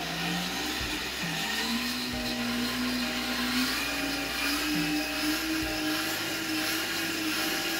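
A hand-cranked train of 3D-printed gears spinning a disc at high speed, whirring steadily with a whine that steps up in pitch about a second and a half in and again around four seconds in as the crank is driven faster.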